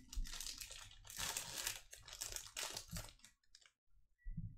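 A trading-card pack's wrapper being torn open and crinkled by hand: several rustling, crackling bursts over about three seconds, then quieter.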